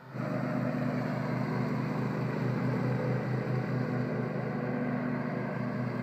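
Riding lawn mower engine running steadily while mowing.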